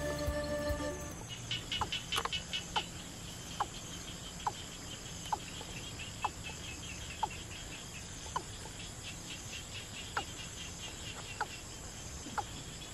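Faint outdoor countryside ambience: short chirping bird calls, roughly one a second, over a steady fast pulsing of insects. Background music fades out in the first second.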